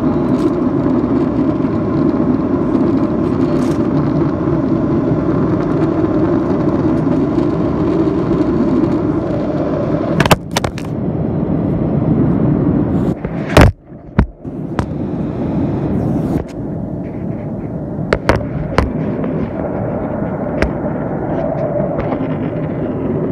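Steady drone of a jet airliner's cabin in cruise: engine and airflow noise heard from a window seat. A few knocks from handling the recording device break in about halfway through, the loudest followed by a brief dropout in the drone, with a couple more a few seconds later.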